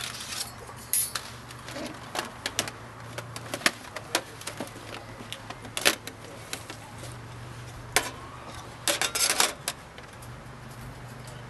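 Thin stainless-steel panels and wire grill of a folding portable barbecue clinking and clattering as they are unfolded and slotted together: scattered sharp clicks, with a quick flurry of them about nine seconds in.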